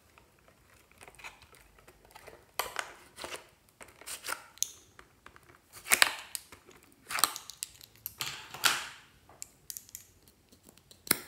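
Clear plastic packaging tray crinkling and plastic lip gloss tubes clicking against each other as they are handled and pulled out, in irregular bursts, with a sharp click near the end.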